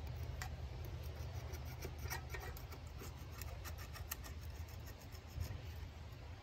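Light scraping and rubbing on a tractor's engine block deck as a scraper and hand work off old gasket residue, with scattered faint clicks over a steady low hum.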